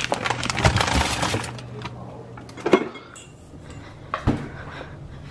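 A paper-wrapped package is pushed into a refrigerator. The paper bag rustles and glass bottles and jars on the shelves clink together for the first second or so. Then come two knocks, one near the middle and one about four seconds in.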